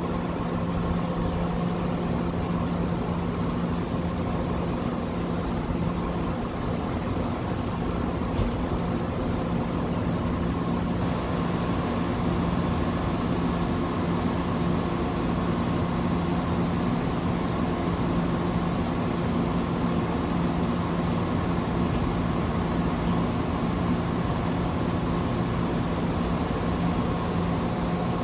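Steady low mechanical hum with a constant drone over even street noise, unchanging throughout.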